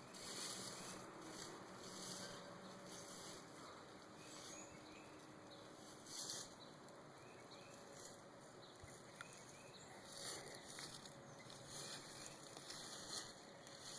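Near silence outdoors: a faint steady hiss with soft, irregular rustling brushes every second or so.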